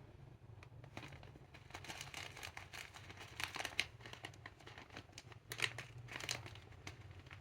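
Clear slime being worked by hand with lipstick mixed in, giving sticky crackling and irregular clicking, with a few louder clicks about three and a half and six seconds in. A faint low hum runs underneath.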